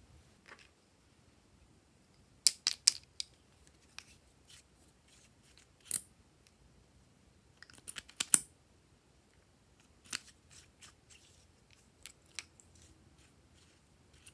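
Glossy slime being pressed and stretched by hand, giving scattered clusters of short, sharp clicks and pops.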